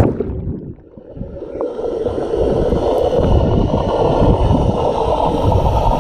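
A splash at the start as the camera goes into the water, then muffled underwater gurgling and rumbling from a camera held underwater by a swimmer, growing louder and steady after about a second and a half.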